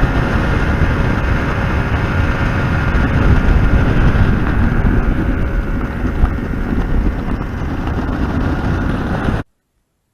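Wind buffeting the microphone over the steady drone of a boat's outboard motor under way. It cuts off suddenly near the end.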